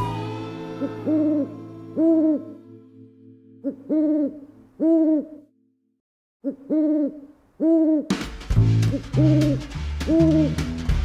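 Owl hooting: short arched hoots, mostly in pairs about a second apart, repeated several times. Music with a bass line comes in under the hoots about eight seconds in.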